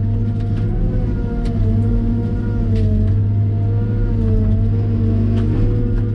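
Cat M313D wheeled excavator's diesel engine running steadily, its pitch wavering slightly up and down as the hydraulics take load, with a few sharp clicks or knocks.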